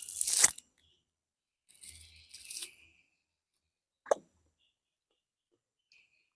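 Fruit skin being torn open by hand: a loud tearing crackle at the start, a second, softer stretch of tearing about two seconds in, and a single sharp click a little after four seconds.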